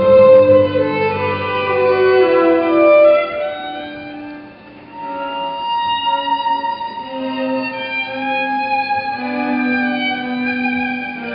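Classical music led by a violin playing slow, held notes; it thins out and softens about four seconds in, then picks up again.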